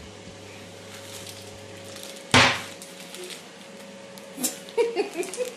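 Rummaging in a kitchen cupboard: a steady low hum stops about two seconds in, then one loud, short knock or clatter, followed near the end by light clicks and the crinkle of a plastic food packet being handled.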